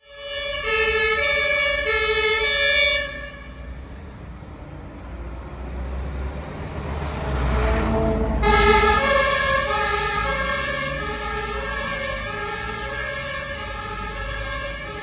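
German fire engine's two-tone siren, switching back and forth between a high and a low note. It is loud at first, drops away after about three seconds, and comes back strongly as the truck drives past about eight seconds in, with its engine and tyres rumbling underneath.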